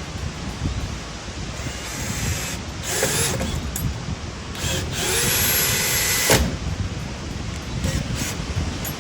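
Power drill running in two short runs, a brief one about three seconds in and a longer one of just over a second near the middle, over wind rumbling on the microphone.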